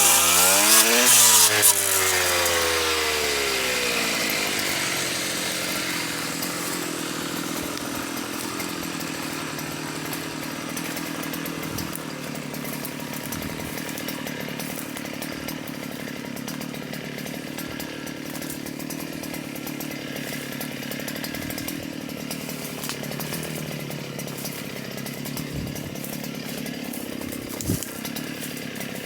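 STIHL KA 120 R cutter with a chainsaw-toothed circular blade slowing down: its pitch falls over the first few seconds. It then runs steadily at a lower level, with one brief knock near the end.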